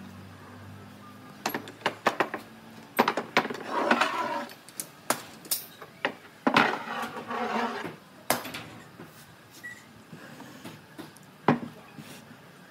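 Steel pipe clamps being loosened and pulled off a glued wooden table base: irregular metallic clanks and rattles mixed with wooden knocks, and one sharp knock near the end. A low hum runs underneath for the first second and a half, then stops.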